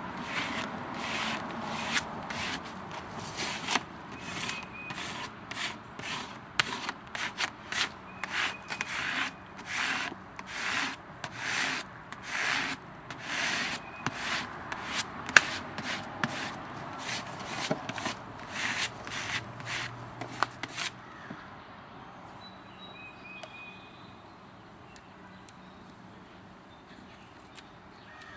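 Putty knife rubbing in repeated short strokes over a vinyl decal on car window glass, pressing the lettering flat. The strokes come about one or two a second and stop about three quarters of the way through.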